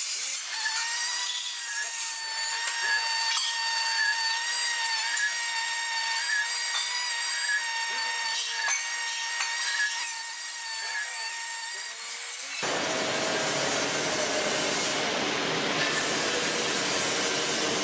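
MIG welding arc on a 3-inch pipe joint, crackling and hissing with a steady high whine. About two-thirds of the way through it cuts off suddenly to a steady, fuller rushing noise.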